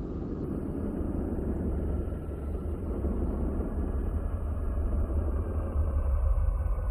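Space sound attributed to Uranus's moon Miranda: a deep, steady rumbling roar that slowly grows louder.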